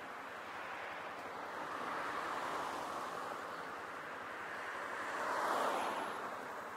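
Road traffic and wind noise on the microphone: a steady hiss that swells as a vehicle passes about five and a half seconds in.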